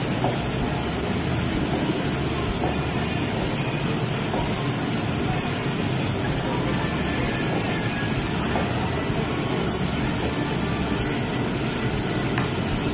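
Steady, even machine-like noise with no distinct events and no change in level.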